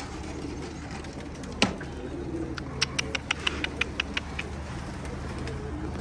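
Domestic pigeons cooing softly. There is one sharp click about one and a half seconds in and a quick run of about a dozen clicks around the middle.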